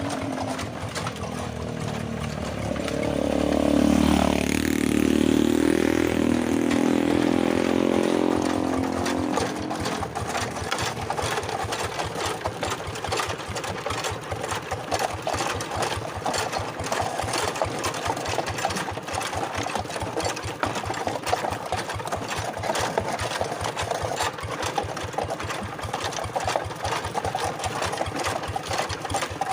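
Two-wheel hand tractor's single-cylinder diesel engine running with a fast, even chugging. For several seconds near the start a louder, deeper engine note swells and fades.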